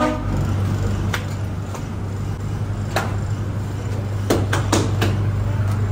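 Steady low hum of bakery machinery, with a few sharp knocks and clatters scattered through it, several of them close together a little over four seconds in.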